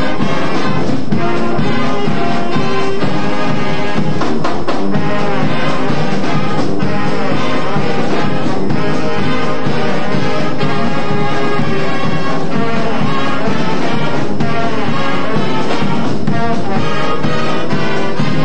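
A high school marching band playing a brass-led arrangement, with trumpets and trombones, recorded live in the band room.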